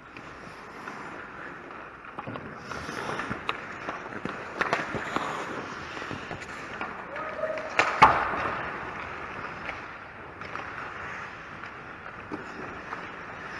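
Ice skates scraping and carving on a hockey rink's ice, with scattered clacks of sticks and puck. About eight seconds in there is one loud, sharp clack.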